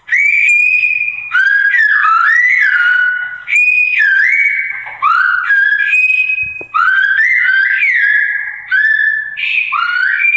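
Silbo Gomero, the whistled form of Spanish: a person whistling a string of short phrases whose pitch slides up and down, played back through a phone's speaker.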